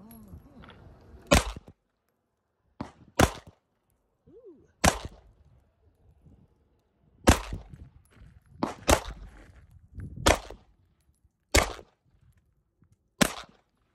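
Ruger SR1911 Commander-style 9mm pistol firing slow, aimed shots: about nine sharp reports, roughly one to two seconds apart.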